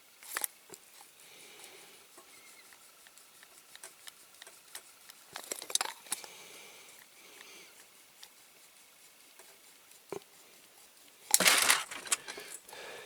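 Small scattered metal clicks and scrapes as a pin is worked out of a diecast model's metal chassis by hand, with a louder scraping rattle about eleven seconds in.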